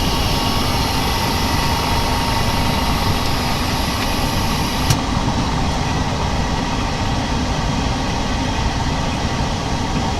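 LCD laminating machine running steadily while it presses the glass onto the screen. A click about five seconds in is followed by the high hiss dropping away.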